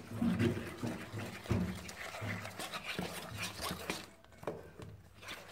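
A metal spoon stirring dry rice flour into beaten egg in a stainless-steel bowl, in repeated scraping, brushing strokes a little more often than once a second. This is the mixing of murukku dough.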